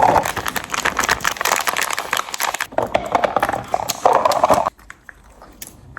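Close-miked eating sounds for ASMR: rapid crackly mouth clicks and chewing, which stop abruptly a little before the end.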